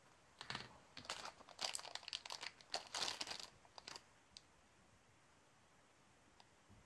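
Thin clear plastic bag crinkling quietly as it is handled, in several short spells of crackling over the first four seconds, followed by a couple of faint ticks.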